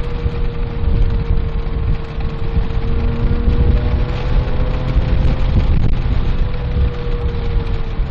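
Porsche 997.1 GT3's flat-six engine pulling steadily on track, heard from inside the cabin over a heavy low rumble of road and wind noise. The engine note climbs gently and eases off slightly near the end.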